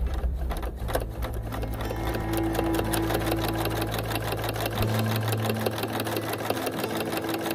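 A sewing machine running at speed: a rapid, even clatter of stitches over a low steady hum that shifts pitch about a second in and again about five seconds in.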